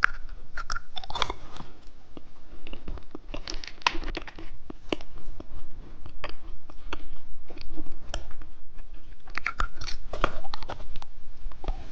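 A hard-shelled gumball being bitten and chewed, with many irregular crisp crunches as the candy shell breaks.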